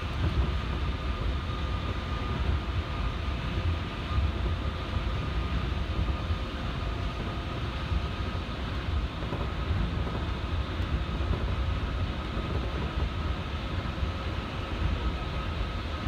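Osaka Monorail train running on its rubber tyres along the guideway beam, heard from inside the front car: a steady low rumble with a faint, steady high tone running through it.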